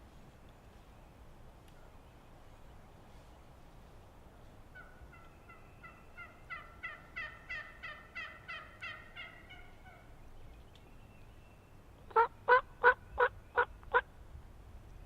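Wild turkey yelping: a series of about a dozen yelps that swells and fades in the middle, then six loud, sharp yelps near the end.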